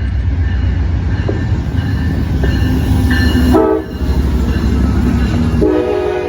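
Amtrak P42DC diesel locomotives running with a heavy low rumble. The horn sounds a short blast about three and a half seconds in, then a longer multi-note chord starts near the end.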